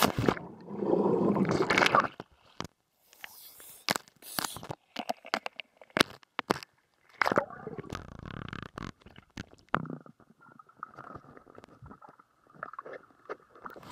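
Waterproof camera's microphone underwater in a swimming pool: muffled underwater gurgling and rushing, broken by short silences and sharp knocks as the camera moves in and out of the water, with a second rushing patch about halfway through.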